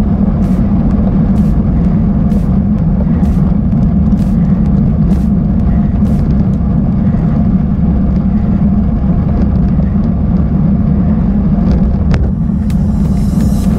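Bicycle riding over a rough, broken dirt track, picked up by a camera on the bike: a loud, steady low rumble with frequent sharp clicks and rattles, and a harder knock near the end.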